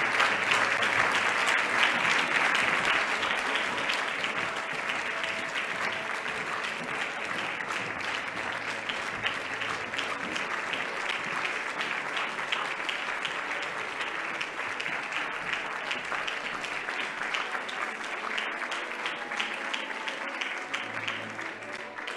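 Audience applauding: dense, steady clapping, loudest at first and slowly dying down.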